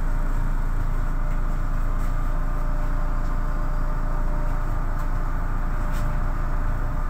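MAN NL263 city bus's six-cylinder diesel engine idling with the bus at a standstill, heard from inside the cabin as a steady low hum.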